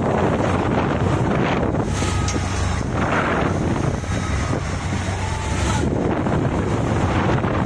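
Wind buffeting the microphone, a steady low rumbling noise, with a few faint thin tones in the middle.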